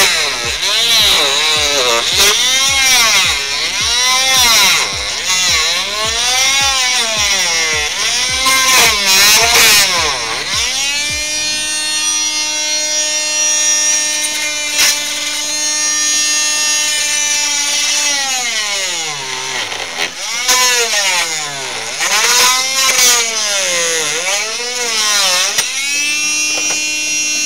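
A motor revving up and down about once a second. Partway through it holds a steady speed for several seconds, slows, revs up and down again, then settles to a steady speed near the end.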